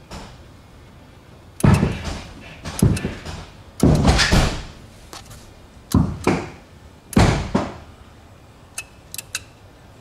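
Five heavy clunks, spaced about a second apart with a pause after the third, each fading over half a second, then a few light clicks near the end. The sound is a Ford Thunderbird's hydraulic lowrider suspension being dropped and jolted as its switches are worked.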